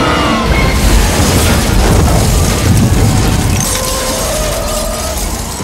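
Film explosion sound effect: a loud, deep rolling rumble that builds about a second in and eases off in the second half, as a blast cloud of dust and debris sweeps through the street.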